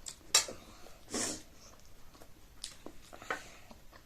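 A utensil strikes a plate or bowl with one sharp clink about a third of a second in. Shorter, softer scraping and eating noises follow about a second in and again near the end.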